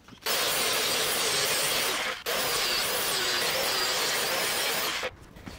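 Corded electric angle grinder grinding steel, a loud even hiss that cuts out briefly about two seconds in, then runs again and stops abruptly.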